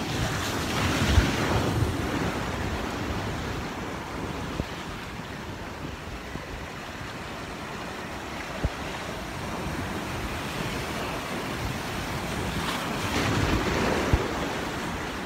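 Sea surf washing in over the sand at the shoreline, a steady rush that swells with an incoming wave about a second in and again near the end. A few brief low thumps of wind on the microphone.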